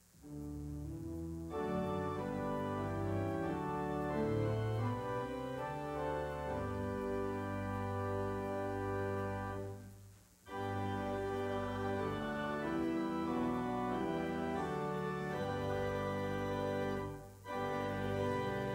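Church organ playing slow, sustained chords. It enters at the start, fills out a second or so later, and breaks briefly between phrases about halfway through and again near the end.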